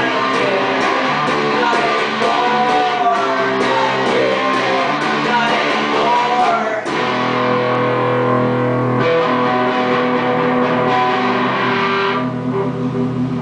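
Electric guitars playing an instrumental passage, busy strummed and picked chords at first. About seven seconds in it changes to long held chords over a low sustained note, thinning out near the end.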